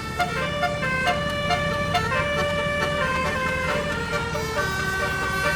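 Multi-trumpet telolet bus horn playing a melody, with notes held and stepping from pitch to pitch, several sounding together as chords, over the bus's running engine.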